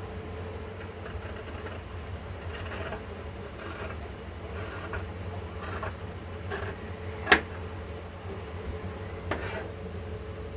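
Tailor's scissors cutting through cotton shirt fabric: a run of short, scratchy snips at an uneven pace, with one sharp click about seven seconds in.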